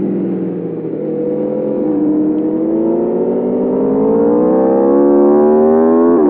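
2021 Aprilia RSV4 Factory's V4 engine under way: the engine note falls as the bike slows for about the first second, then climbs steadily under acceleration for several seconds, and drops abruptly with an upshift near the end.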